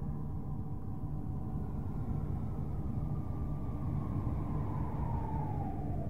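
Space-probe data converted to sound, presented as the sound of Saturn's rings: a steady low hum with faint whistling tones above it. About three and a half seconds in, one tone slides steadily down in pitch.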